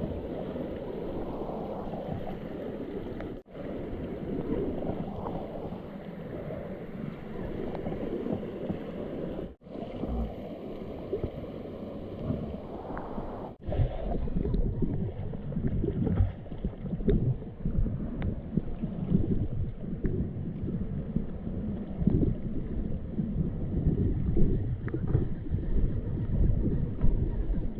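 River water rushing and splashing, with wind buffeting the microphone; after a cut about halfway through, the water sound turns louder and more uneven.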